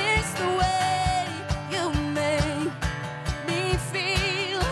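Live acoustic country-pop: an acoustic guitar strummed, a cajón keeping a steady beat of about three strokes a second, and a woman's voice holding long notes with vibrato.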